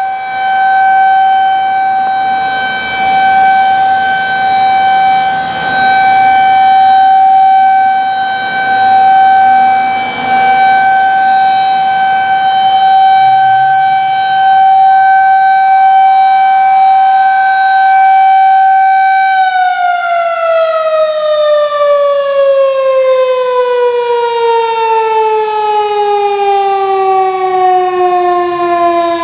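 Federal Signal 2001-SRN electromechanical rotating outdoor warning siren sounding a steady single tone, loud, swelling and fading every few seconds as the rotating head sweeps around. About two-thirds of the way through, the tone starts to slide steadily down in pitch as the siren winds down at the end of its steady-alert test.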